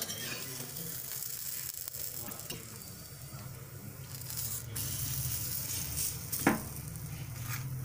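Oil sizzling steadily under a stuffed dabeli bun toasting on a hot iron tawa, over a low steady hum. One sharp knock about six and a half seconds in.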